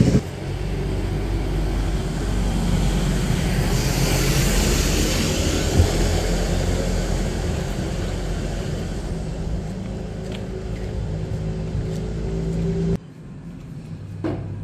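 Steady road traffic noise, which drops abruptly to a quieter low hum about two seconds before the end.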